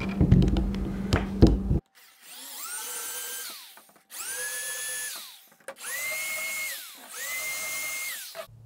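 Cordless drill with a countersink bit countersinking screw holes in a ski, run in four short trigger pulls. On each pull the motor whine rises, holds steady for about a second, then winds down. A louder rough noise fills the first couple of seconds and cuts off suddenly.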